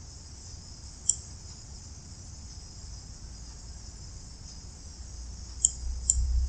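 A few sharp computer mouse clicks, one about a second in and two close together near the end, over a steady high-pitched hiss. A low rumble rises near the end.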